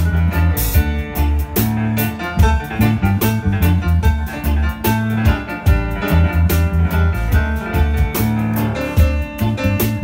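A live band playing an instrumental tune with a swing-jazz feel: electric keyboard and bass guitar, with a strong moving bass line and frequent sharp percussive hits.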